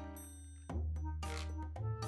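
Background music: an instrumental tune with a steady bass line. A held chord gives way to the beat coming back in under a second in.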